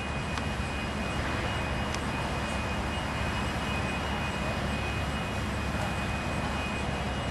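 Steady background rumble and hiss with a faint, steady high-pitched whine running through it.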